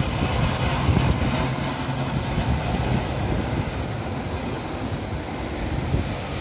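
A garbage truck's diesel engine running, a low steady hum over a constant wash of wind and street noise.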